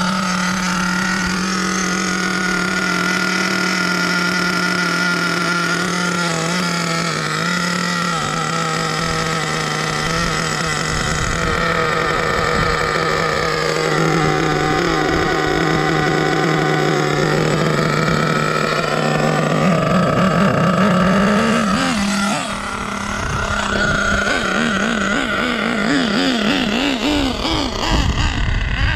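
Small nitro engine of an HPI Savage X 4.6 RC monster truck running at a steady buzzing pitch, then revved up and down repeatedly near the end.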